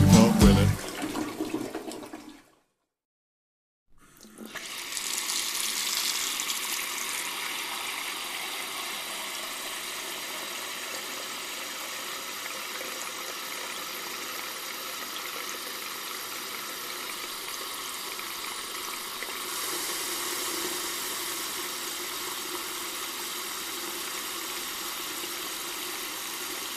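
The song's last notes fade out; after a short silence a toilet flushes and water keeps running in a steady rush, swelling a little again about two-thirds of the way through.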